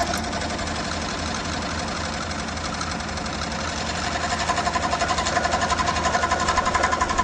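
Scroll saw running, its reciprocating blade cutting through MDF with a steady rapid chatter that grows a little louder in the second half.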